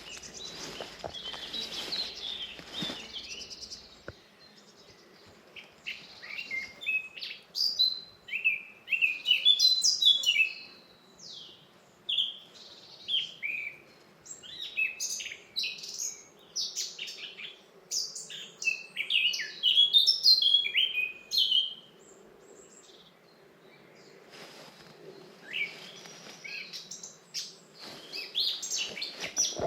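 A songbird singing a long, fast song of many short falling whistled notes, which stops for a few seconds before starting again near the end. Footsteps crunch on a forest path at the start and again near the end.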